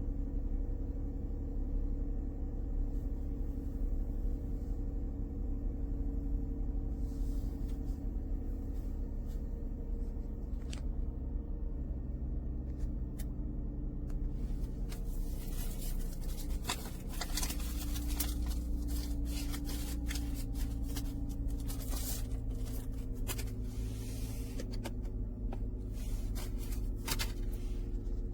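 Music from a CD playing through a car's audio system, with held low notes. From about halfway through, it is overlaid by many sharp clicks and scraping noises.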